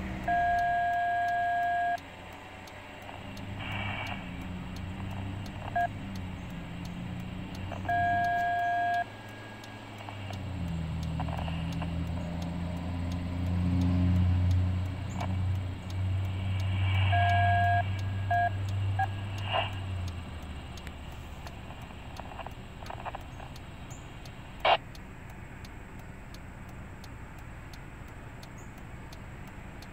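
A two-note tone sounds in five irregular blasts, two of them long and three short. Between about ten and twenty seconds in, a heavy vehicle's engine passes by, and there is a single sharp click near the end.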